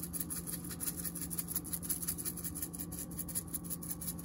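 Crushed red pepper flakes shaken out of a spice shaker: a quick, even run of small rattling shakes, several a second, over a steady low hum.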